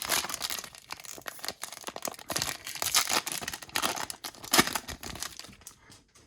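Foil wrapper of a Yu-Gi-Oh booster pack being torn open and crinkled in the hands: a dense, irregular crackling that fades out near the end.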